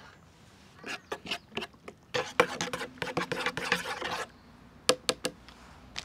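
Handling noises at a camp table: scattered light knocks and clicks of dishware, with about two seconds of denser rustling and clatter in the middle and a few more clicks near the end.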